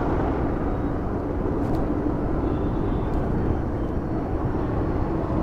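Motorcycle running steadily on the road while being ridden, engine and road noise blended into a constant rush, its liquid-cooled engine running without coolant.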